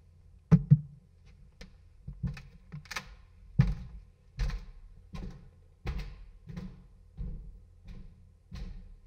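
A series of dull thumps and knocks: two loud ones about half a second in, then a steady beat of about one every three quarters of a second, at a walking pace.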